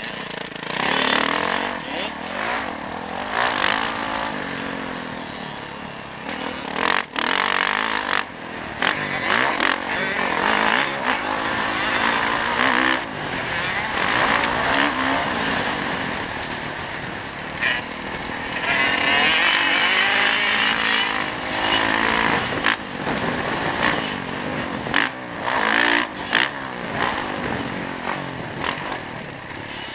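Dirt bike engine heard from the rider's own bike while riding a motocross track, its pitch rising and falling as the throttle is opened and closed, with frequent brief drops between pulls. About twenty seconds in, a loud rushing noise comes in for a couple of seconds.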